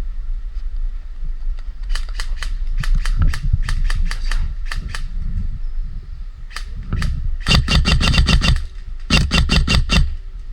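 Airsoft guns firing: scattered single shots, then two rapid bursts of about eight and six sharp snaps in the second half, over a steady low rumble.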